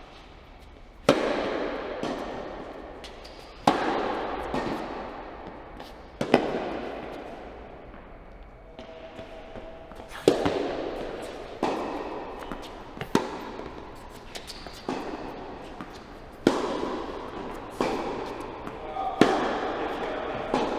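Tennis rally: a ball struck by racquets and bouncing on the court, sharp hits every one to three seconds, each followed by a long echo in the indoor tennis hall.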